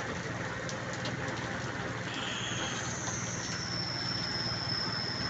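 A motor vehicle's engine running steadily, with a thin high squeal that starts about two seconds in and holds on.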